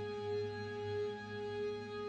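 Background music: a slow ambient piece of steady held tones that swell gently.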